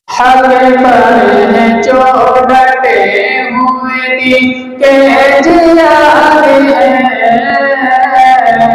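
A man singing an Urdu naat solo into a microphone, in long held melodic lines, with a short pause for breath about four and a half seconds in.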